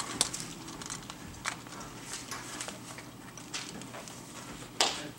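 Scattered light taps and paper rustles as sheets are handled at a metal music stand, with one sharper, louder rustle near the end.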